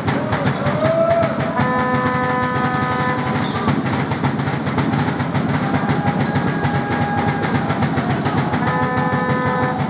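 Fast, steady drumbeat, several beats a second, with a held horn-like chord twice: about two seconds in and again near the end. The drumming cuts off right at the end.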